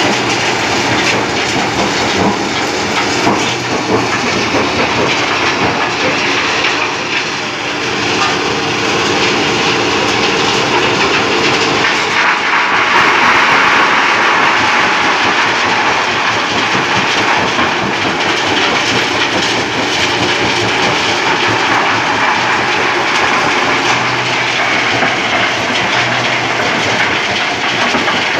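Stone-crushing plant running: crushers and belt conveyors clattering and grinding as rock is broken down into sand, a loud continuous din. A steady hum underlies it at first, and from about twelve seconds in the grinding grows louder and harsher.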